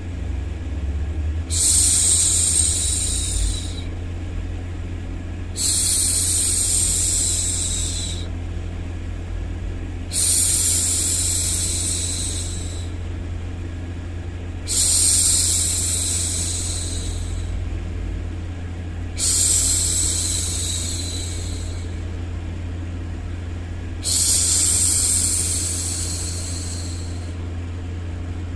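A woman hushing a baby with long 'shhh' sounds, six in a row, one every four to five seconds, each lasting about two seconds and fading out. Underneath runs a steady low white-noise hum.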